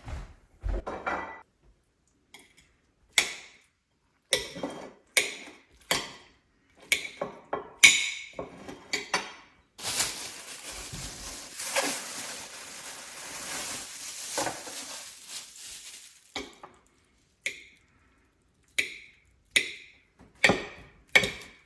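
Dishes and cutlery clinking: a run of sharp knocks and chinks with short ringing, as cups, plates and spoons are handled and set down. In the middle comes a steady hissing noise for about six seconds.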